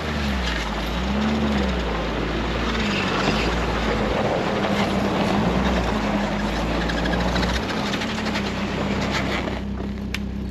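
Ski-Doo Expedition snowmobile engine running as the machine pulls in slowly, its pitch rising and falling with the throttle, then stopping near the end.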